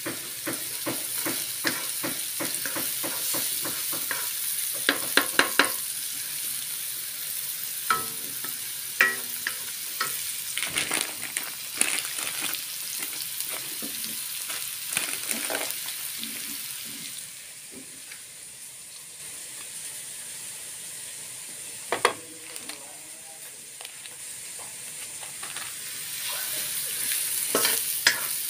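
Diced ingredients sizzling in oil in a nonstick wok, stirred with a wooden spoon whose strokes scrape and tap against the pan. The sizzle eases for a stretch past the middle, broken by one sharp knock, and picks up again near the end.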